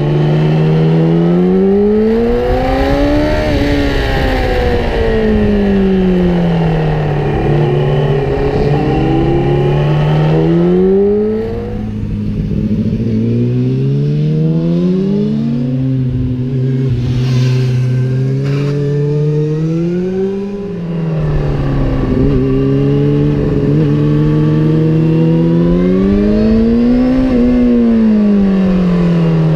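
Motorcycle engine under hard riding, its revs climbing and falling every few seconds as the bike accelerates out of bends and rolls off into them. The engine eases off briefly twice along the way.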